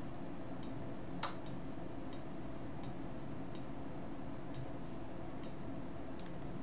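Faint, fairly regular ticks, about one every three-quarters of a second, over a steady hiss, with one louder click just over a second in.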